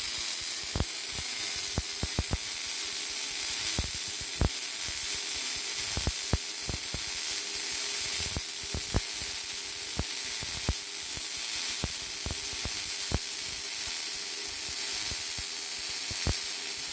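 MAG welding arc running on a 3F vertical fillet weld: a steady crackling hiss, broken by irregular sharp pops about once or twice a second.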